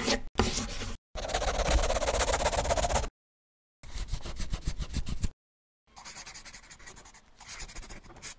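Pencil scribbling on paper, the sound effect of the logo being drawn: a few separate runs of quick back-and-forth scratching strokes with short pauses between, the last run quieter.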